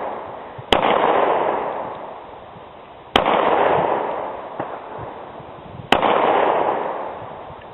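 Three pistol shots from a Glock handgun, fired slowly about two and a half seconds apart, each followed by a long echoing decay.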